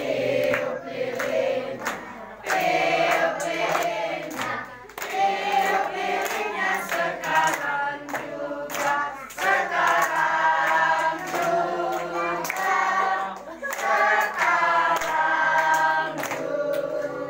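A group of people singing a birthday song together, with steady hand clapping along to the beat.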